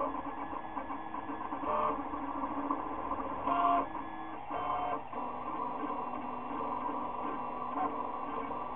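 Stepper motors of a Maker Select v2.1 (Wanhao i3) 3D printer running Klipper firmware, whining through fast print moves, the pitch stepping up and down with each change of direction and speed. Short louder, higher-pitched moves stand out about two, three and a half and five seconds in.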